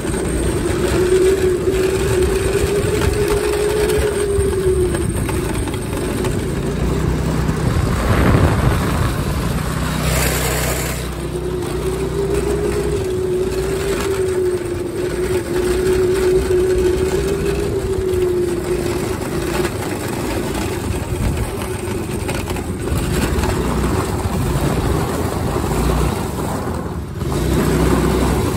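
A go-kart's small engine running at high revs while the kart is driven, its pitch wavering up and down with the throttle over a steady rushing noise. The engine note fades twice for several seconds and comes back near the end. The high revs come from a newly fitted torque converter, which engages at a higher RPM than the old clutch.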